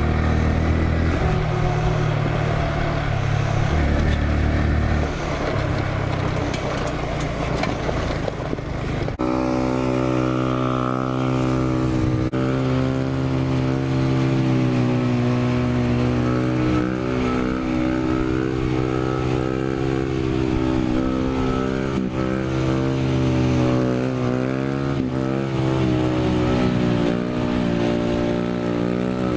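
Small motorcycle engine running under way. About nine seconds in the sound cuts to a steady held engine note with small rises and falls in pitch.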